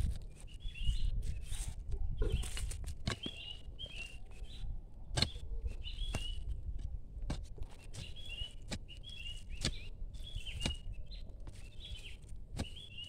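A steel crowbar jabbing and prying in dry, stony soil, giving a series of sharp knocks and scrapes about once a second. A bird chirps over and over in short calls.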